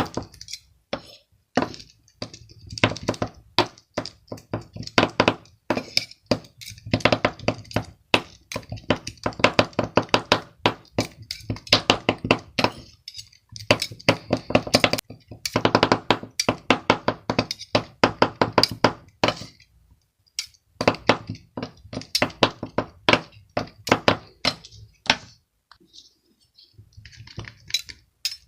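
Slime being squeezed and worked by hand: bursts of dense crackling clicks and squelches, a second or two at a time, with short pauses between.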